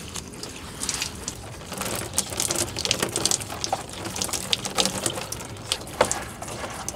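Fresh water from a handheld deck shower spraying over a neoprene wetsuit and splashing onto the deck, with an irregular crackle of drops hitting.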